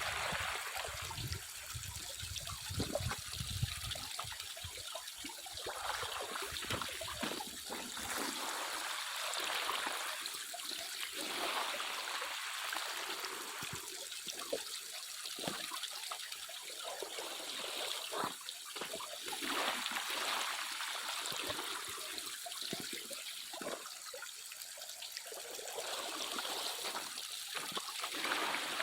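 Water trickling and running steadily, with many short splashes and spatters scattered through it.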